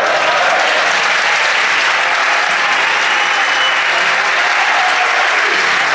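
Large football stadium crowd applauding: a steady, dense wash of clapping.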